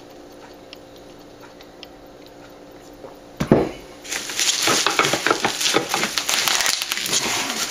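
A sharp knock, then from about four seconds in a continuous dense crackling and crinkling of plastic packaging being handled and pulled off.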